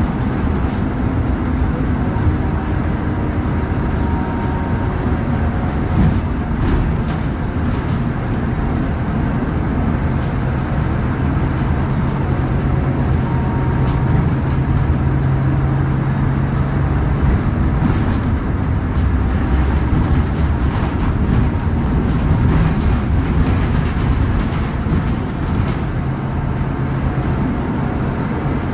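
Scania K280UB city bus with its DC09 five-cylinder diesel, heard from inside the passenger cabin while driving: the engine runs under the road and tyre noise. About a third of the way in, the engine hum settles on one steady pitch for several seconds before shifting again.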